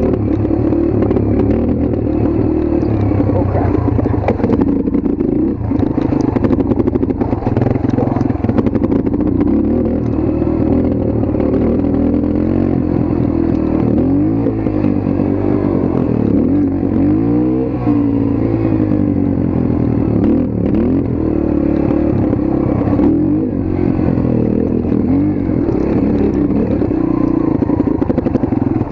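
Motorcycle engine running while being ridden, its pitch rising and falling with the throttle several times in the middle, with some clattering.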